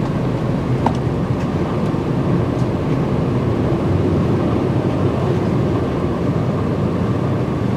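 Steady engine and road noise inside the cabin of a moving bus as it drives away from the station stop.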